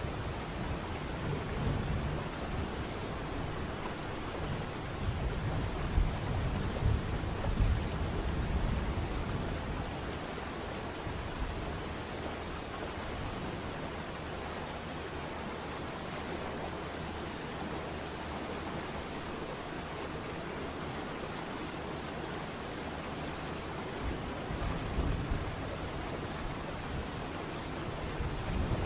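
Waterfall rushing steadily, with a deeper low rumble through the first third that eases off and returns near the end. A thin, steady high tone runs underneath.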